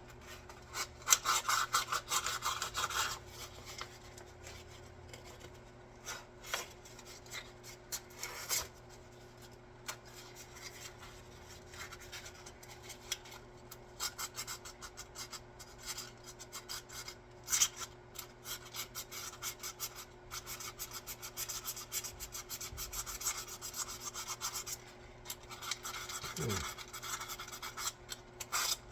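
A hand file scraping in quick runs of short strokes, with pauses between the runs; the busiest runs come about a second in and again through the middle.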